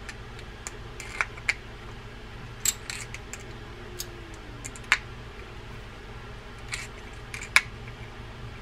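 Scattered light metallic clicks and clinks from a small wrench on the reverse-threaded rotor nut of a vintage spinning reel, with the reel handled between turns as the nut is tightened.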